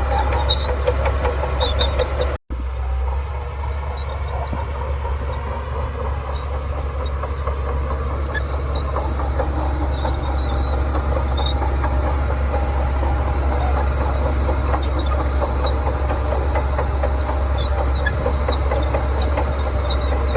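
Shantui DH17C2 bulldozer's diesel engine running steadily with a deep hum, cutting out completely for an instant about two and a half seconds in.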